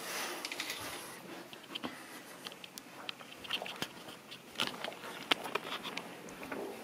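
Camera handling noise: scattered light clicks, taps and rubbing at irregular moments over a faint hiss, the sharpest click about five seconds in.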